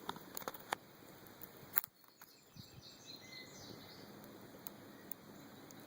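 Small campfire crackling faintly, with scattered sharp pops over a low outdoor hiss; the sound drops out briefly about two seconds in.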